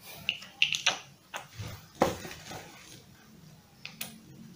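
Hands working a white plastic dump-valve part against a BCD's nylon fabric: scattered clicks, taps and scrapes of handling, a cluster in the first second and single ones about two seconds in and near the end.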